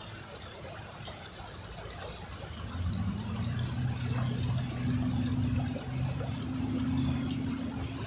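Steady wash of river water, with a low engine hum that comes in about three seconds in and grows louder.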